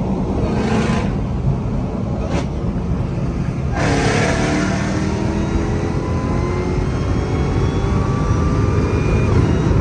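Dodge Hellcat's supercharged 6.2-litre V8 heard from inside the cabin at highway speed, its exhaust freshly repaired with a missing screw replaced. About four seconds in the throttle opens and the engine note and a high whine climb steadily in pitch as the car accelerates.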